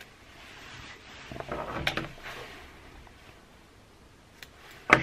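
Handling noises at a fly-tying bench: about a second of rustling and small clicks as tying materials and tools are picked up, with a sharp click right at the end.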